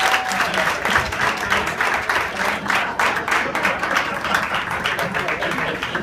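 Audience applauding, a dense clatter of many hands clapping.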